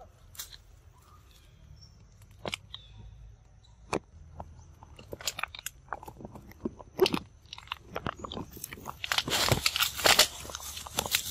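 Macaques chewing and biting green vine stems close by: crisp crunching clicks, sparse at first and growing denser, becoming a thick crackle of stems and leaves near the end.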